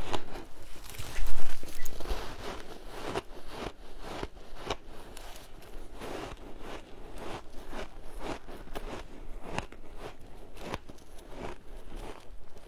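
Close-up crunching of a mouthful of packed shaved ice being chewed: a loud crunch about a second in, then a steady run of quieter, crisp crunches.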